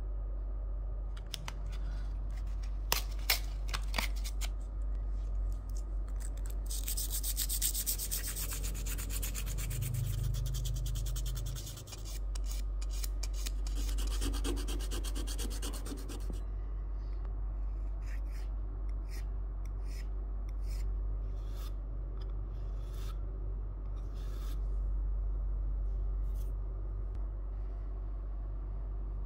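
Hand sanding and filing of an acetate eyeglass frame. In the middle, a sanding pad rubs the frame front in fast scraping strokes. From about two-thirds of the way in, separate strokes come at roughly one to two a second, and near the end these are a flat file rasping along an acetate temple. A couple of sharp clicks come about three seconds in.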